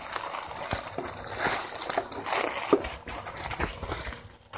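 Black plastic bubble wrap and plastic packaging rustling and crinkling as a parcel is unwrapped by hand, with irregular sharp crackles.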